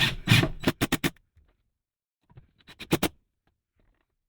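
A series of short scraping and rubbing strokes on hard surfaces: several quick ones in the first second, then another short cluster about three seconds in.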